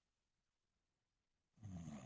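Near silence between snores, then a low, pitched snore starts about one and a half seconds in.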